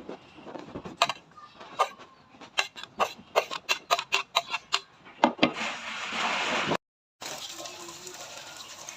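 Kitchen utensils and dishes clicking and clinking in a quick, irregular run of sharp knocks, followed by a short hissing noise that stops abruptly.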